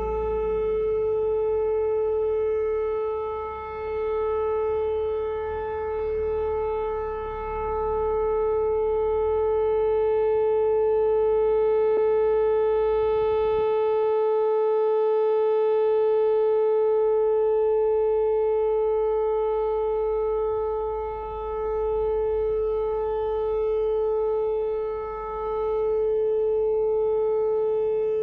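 Whelen rotating outdoor warning siren sounding a steady single-pitch tone during its weekly test. Its loudness swells and dips every few seconds as the directional horn turns toward and away.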